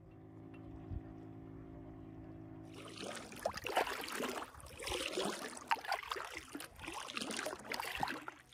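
Paddle strokes splashing and water dripping and sloshing beside an inflatable packraft. They begin suddenly about three seconds in and come in surges roughly once a second. Before them there is a faint steady hum.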